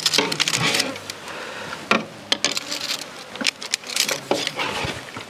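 Metal ladles and spoons clinking and scraping against bowls and a metal pot as soup is ladled out, with insects buzzing throughout.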